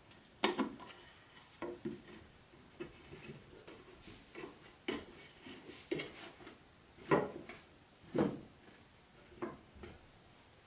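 Wooden parts of a flat-pack doll's house knocking and clicking as pieces and wooden dowels are handled and fitted into their holes: a string of irregular knocks, the loudest about seven seconds in.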